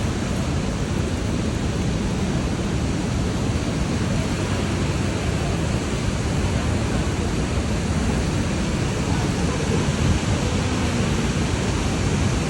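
Waterfalls rushing: a steady, dense roar of falling water.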